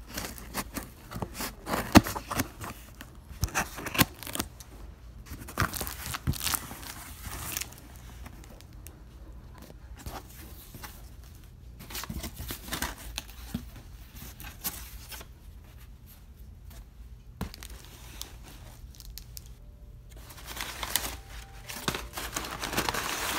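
Packing tape being ripped off a cardboard shipping box and the flaps pulled open, in a series of sharp tearing and scraping strokes. Near the end, a denser crinkling as the crumpled packing paper inside is handled.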